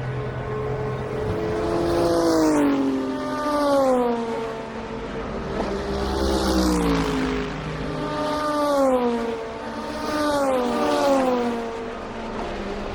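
IMSA race cars passing one after another at speed, about five in turn, each engine note dropping in pitch as the car goes by.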